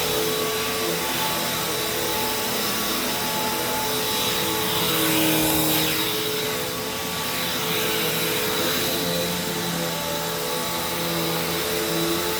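Hoover Taskvac commercial bagged upright vacuum running on carpet: a steady motor drone with a few tones that shift slightly in pitch, getting a little louder for a moment around the middle.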